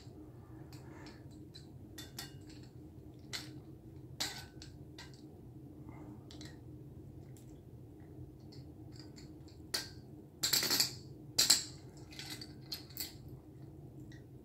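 Scattered light clicks and clinks of small objects being handled, with a louder cluster of knocks and rattles about ten to eleven seconds in, over a steady low hum.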